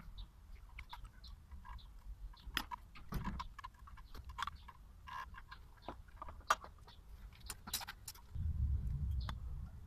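Scattered light clicks and clinks of a Tokico brake caliper and its pads being handled and fitted over a motorcycle's front brake disc, with a low rumble near the end.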